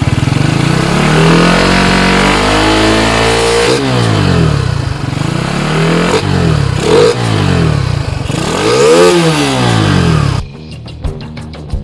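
Kawasaki Rouser 135 LS single-cylinder four-stroke engine revved through a NOB1 NeoSS aftermarket muffler: one long climb in revs, then three quick blips up and back down. It cuts off suddenly near the end, giving way to background music with a beat.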